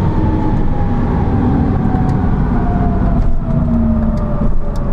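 BMW cars at speed in a roll race, heard from inside the camera car's cabin: a loud, steady rumble of engine, wind and tyres, with a thin whine that slowly falls in pitch.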